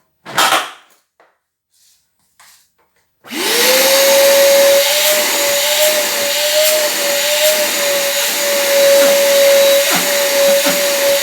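A short knock about half a second in, then about three seconds in the Electrolux A10 wet-and-dry vacuum cleaner switches on: its motor whine rises quickly and settles into a loud, steady run with a rushing noise over it. It runs with its jammed safety float pushed back down, the fix for a vacuum that runs but will not suck.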